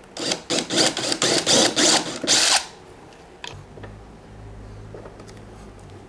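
Cordless Stanley Fatmax drill with a step bit cutting through a motorcycle's plastic body panel in a series of short bursts for about two and a half seconds, then stopping.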